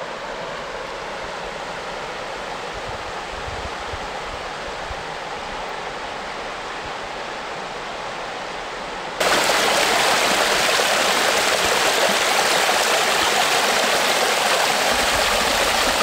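River rapids rushing steadily. About nine seconds in, the sound jumps abruptly to a louder, hissier rush of water.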